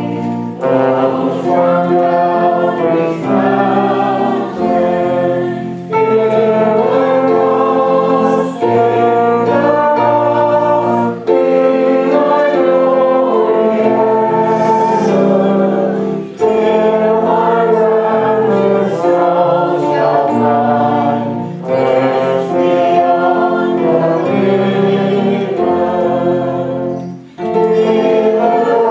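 A group of voices singing a hymn with accompaniment, in phrases of held chords with a short breath between phrases every few seconds.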